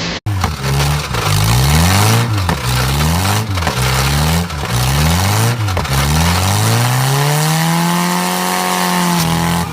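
Car engine revved hard at high rpm, its pitch climbing and dropping back four times in quick succession, then one long climb held at high revs near the end.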